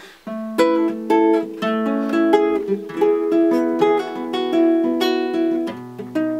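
Acoustic guitar playing an instrumental passage of picked single notes that ring into one another, beginning just after a brief pause that follows strummed chords. A deeper note is held near the end.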